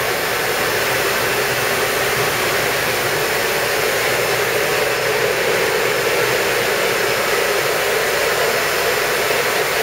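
Steady, even rushing noise of a running semiconductor wet-bench cleaning line, the air and water flow of the machine as it works.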